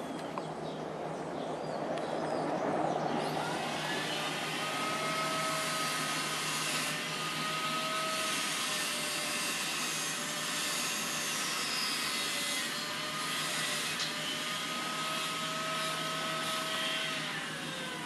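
A machine's steady hum over a noisy rush. It swells in over the first few seconds, holds level, then drops in pitch and fades near the end.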